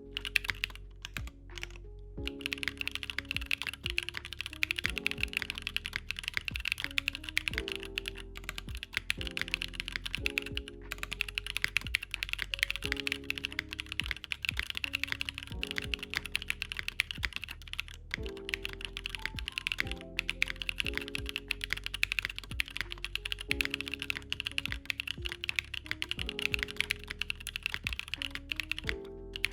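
Monokei Tomo mechanical keyboard with KNCKeys Tofu switches being typed on fast: a dense, continuous run of clacky keystrokes, after a few isolated presses in the first couple of seconds.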